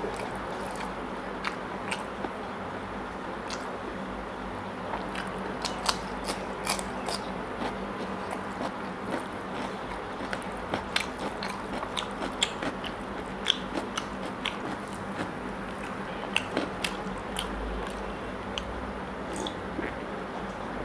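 Close-up wet chewing and mouth smacks of a person eating rice and mutton curry by hand, with many irregular sharp clicks over a steady low hum.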